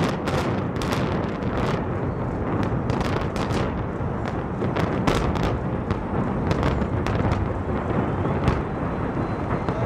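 Explosive demolition charges going off in a fast, irregular string of sharp cracks over a continuous deep rumble as the reinforced-concrete Kingdome stadium dome is imploded and collapses; the cracks thin out near the end.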